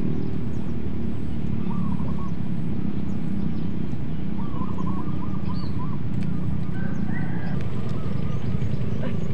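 A steady low rumble with a few faint chirping calls over it.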